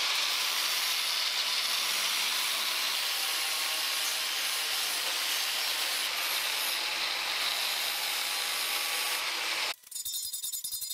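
Angle grinder running its disc along the edge of a plasma-cut steel spoked wheel, grinding off the cut edge with a steady, high-pitched grind. It stops abruptly near the end, followed by a few quieter strokes of a hand file on the steel.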